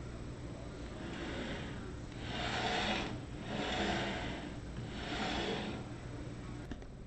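Carving duplicator's router carriage being pushed by hand along its steel guide rods, four swishing sliding sounds a little over a second apart, with a faint click near the end. The router itself is not running.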